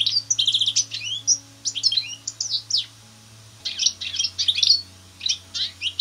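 European goldfinch calling: quick runs of high, liquid twittering notes, with a brief lull around the middle.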